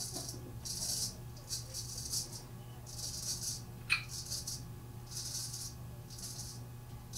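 Straight razor scraping through lathered stubble on the chin in short strokes, about eight in a row, each a brief high rasp. A single short sharp click comes about four seconds in.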